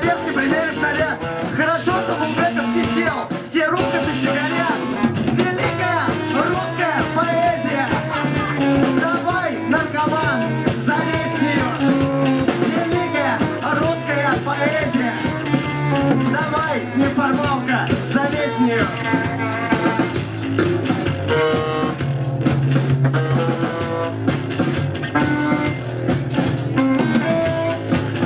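Live rock band playing: electric guitar and drum kit with a male vocalist singing over them.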